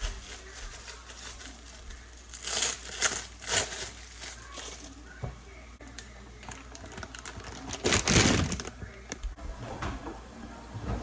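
Crinkling and rustling from handling, with a few light knocks. A cluster of rustles comes two to four seconds in, and the loudest rustle comes about eight seconds in.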